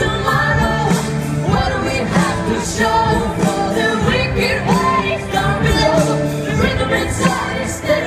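Pop song performed live over amplified speakers: a man singing into a microphone over a backing track with a steady beat.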